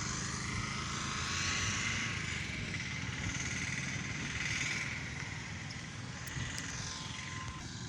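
Train running: a steady mechanical rumble with a faint, thin, high whine held over it.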